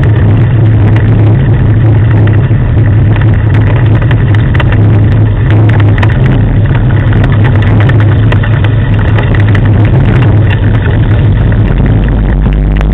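Steady loud rumble with scattered rattles from a dog-pulled rig rolling along a road behind a running sled-dog team.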